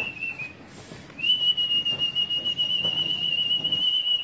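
A high, steady whistle, the kind a pigeon flyer blows to work his flock in the air. It breaks off briefly about half a second in, then is held on one level note from about a second in to the end.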